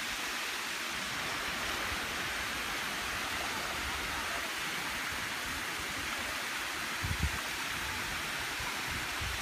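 Steady rushing of water running over travertine terraces, an even hiss with no breaks. A brief low thump comes about seven seconds in.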